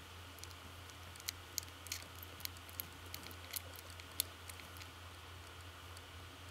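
Newborn Bengal kittens suckling at their mother: faint, irregular little wet clicks and smacks, about eight of them between one and four seconds in, over a steady low hum and hiss.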